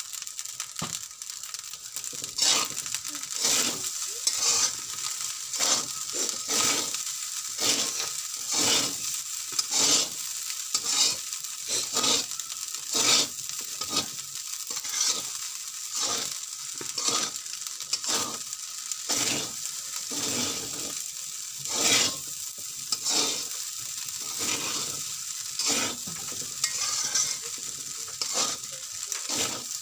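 Metal spatula scraping and tossing fried rice in an aluminium wok, in short strokes about one to two a second, over a steady sizzle of the rice frying.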